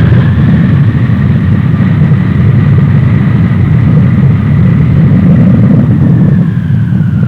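Jet engines of a C-5 Galaxy, its General Electric TF39 turbofans, running: a heavy low rumble under a high whine that holds steady, then falls a little near the end.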